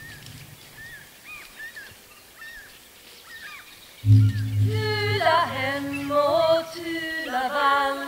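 Faint short chirps, then about four seconds in a loud, low, steady droning note starts, with a higher wavering melody gliding over it.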